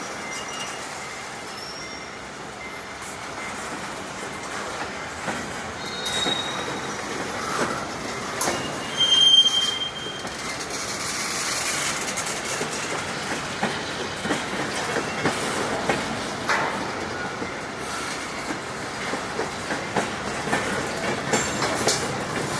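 Freight train rolling past, its wheels clacking over the rail joints, with two short high wheel squeals about six and nine seconds in.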